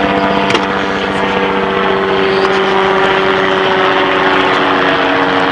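A loud, steady engine drone: a hum of several held pitches over a constant wide noise.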